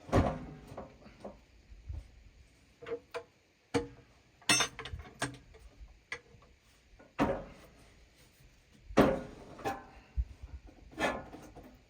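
Irregular knocks and clanks, about eight, some with a short metallic ring, from work on a portable sawmill, with no saw running.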